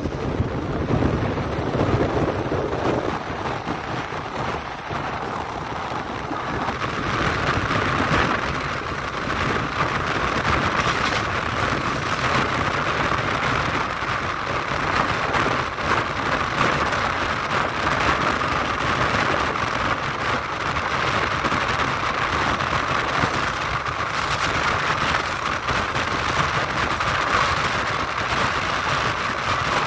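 Steady rushing noise of an Argo Cheribon passenger coach rolling along the track, heard from inside the train. It grows brighter and a little louder about seven seconds in.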